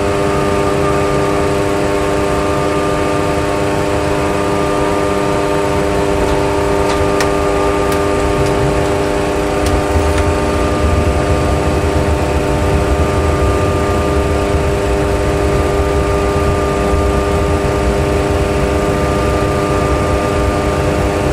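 Boeing 737 Classic full flight simulator: a steady hum of the simulated jet engines. About ten seconds in, a low rumble joins it as the jet touches down and rolls out on the runway with the thrust reversers deployed.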